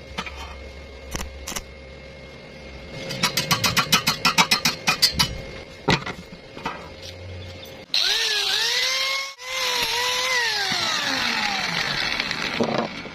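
Handheld electric power tool starting abruptly with a loud whine whose pitch dips and recovers twice under load, then winds down steadily as it is switched off. Before it, a quick run of light clicking taps.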